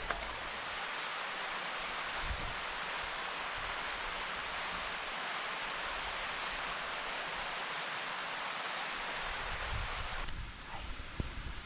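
Steady rush of falling water from a waterfall, cutting off suddenly near the end to a quieter background with a few faint clicks.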